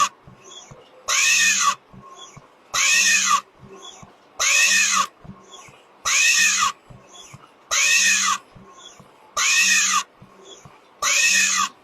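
A factory machine cycling with a hiss and a squeal that rises and falls in pitch, repeating evenly about once every 1.7 seconds, with short quiet gaps in between.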